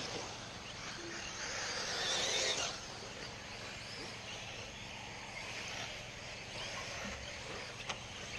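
1/8-scale electric RC buggies racing on a dirt track: a rushing hiss of motors and tyres tearing at the dirt that swells as a buggy passes close and cuts off sharply about two and a half seconds in, then a steadier, fainter hiss from cars further round the track, with a single sharp click near the end.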